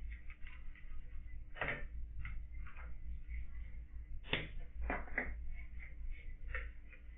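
Room sound through a security camera's microphone: a steady low hum under scattered light clicks and a few louder knocks, the loudest about four seconds in.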